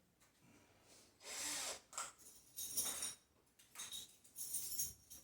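Several short scraping and rubbing noises, each under a second, of tools and metal parts being handled during washing machine reassembly.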